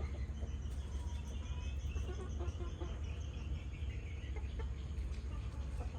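Flock of chickens clucking and chirping in many short overlapping calls, over a steady low rumble.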